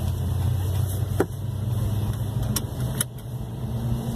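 Hyundai Creta heard from inside the cabin while driving: a steady low engine hum over tyre and road noise, with a few sharp clicks or rattles about a second in and again near three seconds.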